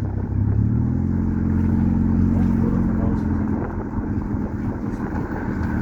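Car engine and road noise from inside a slowly driving car, a steady low drone that strengthens a little after about a second and eases again near the end.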